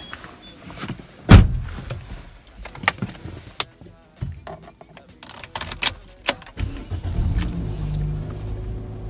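Toyota car's engine starting about seven seconds in and settling into a steady idle, heard from the driver's seat. Before it there is a loud thump and a few sharp clicks.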